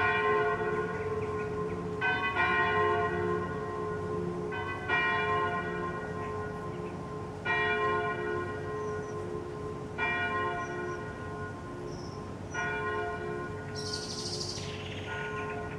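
Two swinging bronze church bells, a 983 kg bell tuned to F and a 771 kg bell tuned to G-flat, ringing together. Two strokes come close together early on, then single strikes follow about every two and a half seconds. Each strike rings on over a steady low hum.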